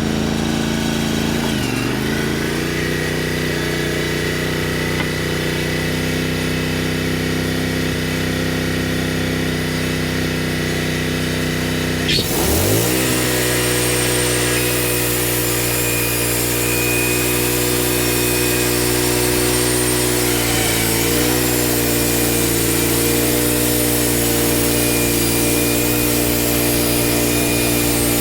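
Gas engine of a Wood-Mizer portable sawmill running steadily at a constant speed. Its pitch dips sharply and recovers about twelve seconds in, with smaller dips near the start and about three-quarters of the way through.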